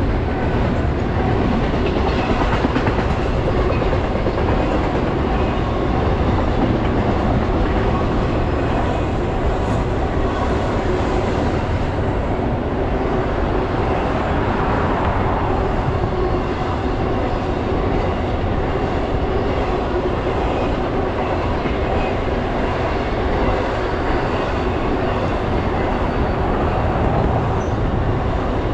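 BNSF intermodal freight train's double-stack container and trailer cars rolling past below: a steady, unbroken rumble of steel wheels on the rails.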